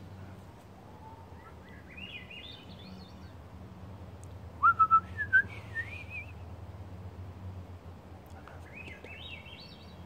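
A thrush singing: flute-like whistled phrases that spiral upward in pitch, twice, with a louder, shorter whistled phrase in the middle.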